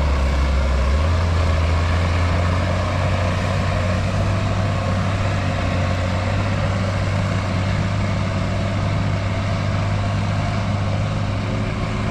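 Tractor engine running hard under load while pulling a weight-transfer sled. The low engine note steps up about a second in, then holds steady and eases slightly as the tractor draws away.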